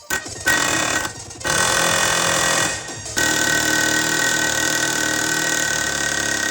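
A power tool working on a seized boom pin, run in three bursts with short stops between them; the last burst lasts about four seconds and holds a steady high whine.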